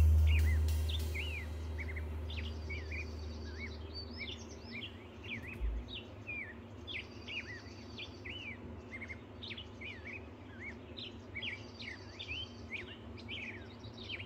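Many small songbirds chirping, with short rising and falling calls overlapping throughout. Underneath is a faint steady hum, and a deep low note dies away over the first three seconds.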